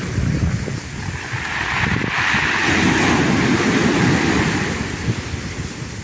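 Small sea waves breaking and washing up a pebbly shore in foam; the wash swells about two seconds in and ebbs away near the end.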